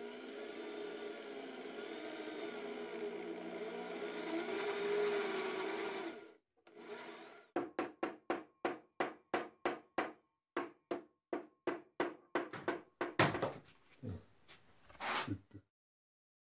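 Corded electric drill with a spade bit boring through an MDF board, running steadily for about six seconds, its pitch sagging and wavering under load. After a short pause come rhythmic strokes of a hand tool working a slot in the board, about three a second, with a few louder strokes near the end.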